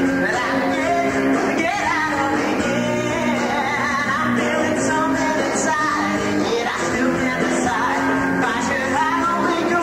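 Rock musical number: voices singing over a rock band accompaniment.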